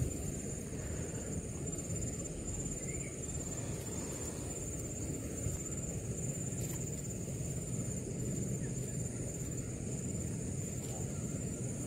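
Steady, high-pitched insect chirring with a fine rapid pulse, over a constant low rumbling background noise.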